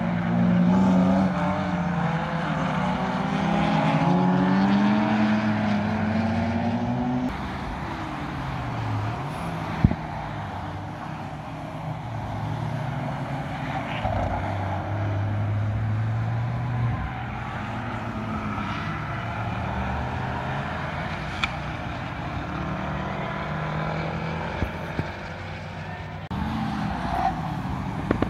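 Several car engines lapping a race circuit, their pitch rising and falling over and over as the cars accelerate and shift gear.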